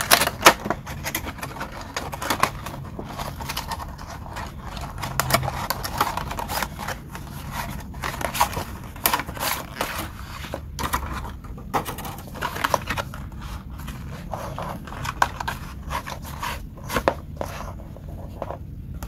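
Stiff clear plastic packaging and its cardboard insert being opened and handled by gloved hands, with irregular crackling, clicking and scraping throughout.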